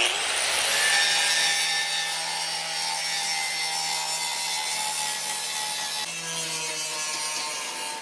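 A power tool cutting through the rusted sheet steel of a lawnmower deck. It starts abruptly and runs steadily, a harsh cutting noise with a steady whine in it.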